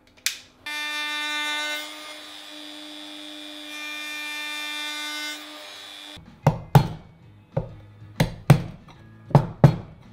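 Wood router running with a steady high whine for about five seconds while finishing the inside edge of a half-lap joint; its level dips and then rises again before it stops. A run of sharp knocks follows.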